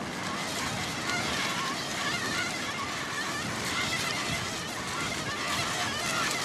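Wind and surf noise on an open beach, with intermittent wavering high squeaks over it.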